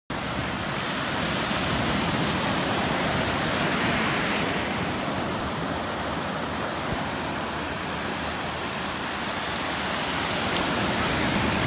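Ocean surf: waves breaking and foam washing over the shallows in a steady rush, swelling a little about three to four seconds in and again near the end.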